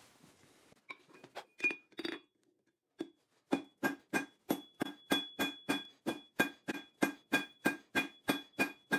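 Hand hammer striking hot steel on an anvil, each blow with a bright anvil ring while the bar is forged. A few scattered blows come first, then from about three and a half seconds in a steady rhythm of about three blows a second.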